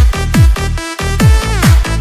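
Electronic dance music: a four-on-the-floor kick drum at about two beats a second under held synth chords, with a brief drop in the beat just before the middle.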